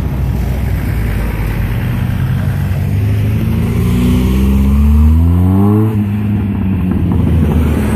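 Lowered mini pickup truck's engine pulling away under acceleration: a steady low rumble, then the engine note climbs for about three seconds and drops away suddenly about six seconds in.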